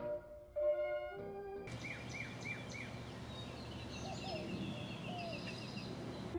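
A short stretch of soft background music ends, then outdoor ambience takes over: steady background noise with birds chirping. There is a quick run of four falling chirps about two seconds in, and scattered calls after it.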